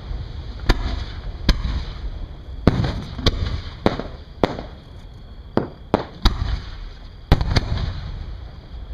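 Aerial fireworks shells bursting one after another: about ten sharp bangs at uneven gaps of half a second to a second, with a low rumble between them.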